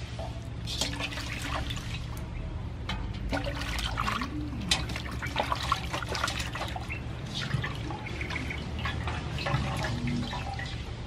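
Water sloshing and splashing in a metal basin as a whole plucked chicken is scrubbed by hand, in irregular splashes, with dripping as the bird is lifted out near the end.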